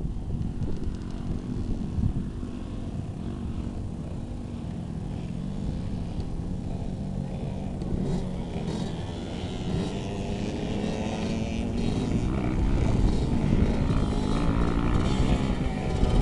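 Small motocross bike engines running and revving, their pitch rising and falling, growing a little louder in the second half.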